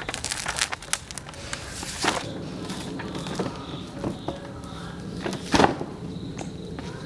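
A large stone rocked and rolled by hand over a metal drypoint plate on sheets of paper and cardboard, pressing a print: crackling and scraping from the sheets under the stone, with scattered knocks. The loudest knock comes about three-quarters of the way through.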